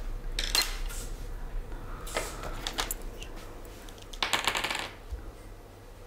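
Paper pattern pieces rustling and crinkling as they are handled and laid together, in a few short bursts. The longest, densest crackle comes about four seconds in.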